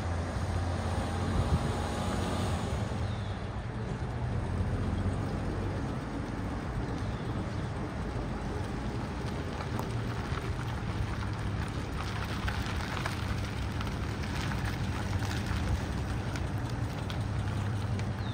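1954 Chevrolet 3100 pickup's straight-six engine running at low speed as the truck drives slowly past, a steady low hum. A bird gives a few short falling chirps.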